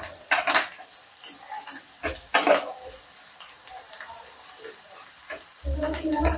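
A spoon stirring and clinking in a small pan as mustard seeds, garlic and red chillies fry in hot oil for a tadka, with irregular metallic clicks and scrapes over a light sizzle.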